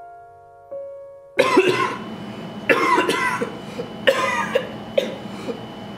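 A couple of soft electric piano notes fade out, then about a second and a half in a person starts coughing hard, in loud, repeated fits about once a second. The coughing is staged, for a comedy sketch about coughing up blood.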